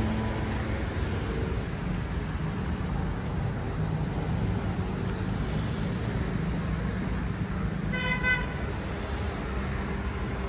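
Steady road traffic running past, with a short vehicle horn honk about eight seconds in.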